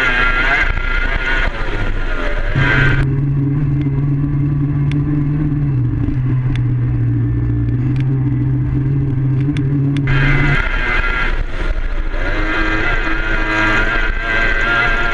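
Mercury outboard racing engine of a Formula 2 tunnel boat running hard at full speed. For several seconds in the middle it turns muffled, leaving a steady low drone that drops slightly in pitch, before the full, bright engine sound returns.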